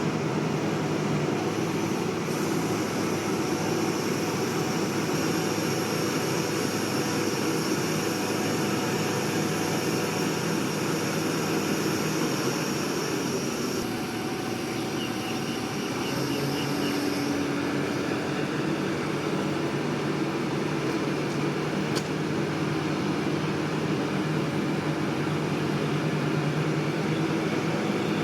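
Heavy-equipment engine running steadily, a constant low drone with a noisy hiss over it.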